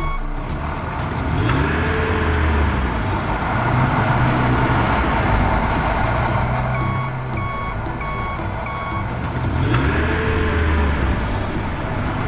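Heavy truck engine running with a steady noisy rumble, and a reversing alarm beeping about three times a second for a couple of seconds partway through.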